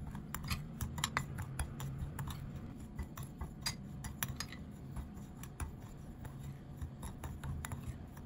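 Metal spoon stirring brown sugar and cinnamon in a glass bowl, scraping through the sugar and ticking against the glass in quick, irregular small clicks.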